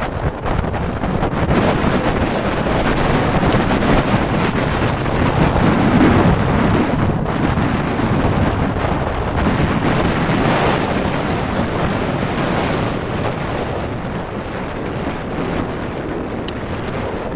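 Wind buffeting the microphone aboard a tour boat under way: a steady, loud rushing over the sound of the boat and water, slightly louder around the middle.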